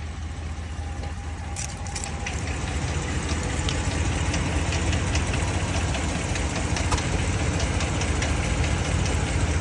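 Engine idling steadily, with a ticking noise over its low rumble.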